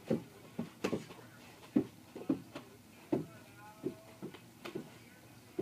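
About a dozen irregular, dull thuds from a rubber ball being dribbled and bounced on a carpeted floor, mixed with footsteps.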